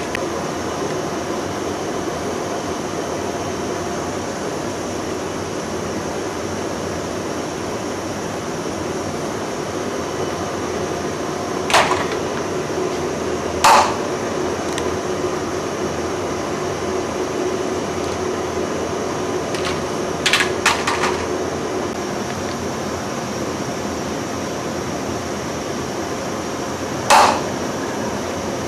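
Moving-head rotary servo cutter running on a plastic extrusion line, a steady machine hum under a few short, sharp cutting sounds spaced several seconds apart, one a quick group of three, as the blade head slices through rigid plastic profile without producing swarf.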